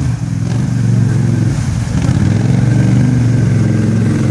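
Polaris 850 Touring ATV's twin-cylinder engine running under throttle at a fairly steady pitch as the quad wades through a creek, with water splashing around the wheels.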